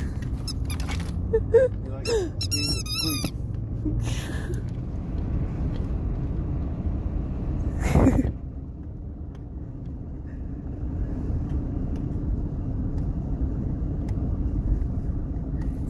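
Steady low road rumble inside a moving car, with a few high wavering squeaks about two to three seconds in and a short louder burst about eight seconds in.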